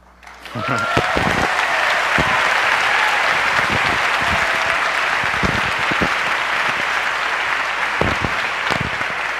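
Audience applauding and cheering, starting about half a second in, with a whoop near the start.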